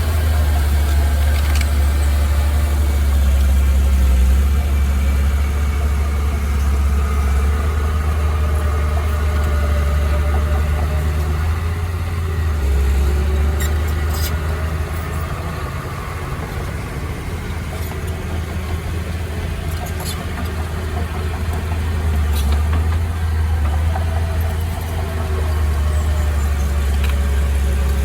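Heavy machinery's diesel engine running steadily with a deep low rumble, easing off a little midway and building again, with a few faint clicks.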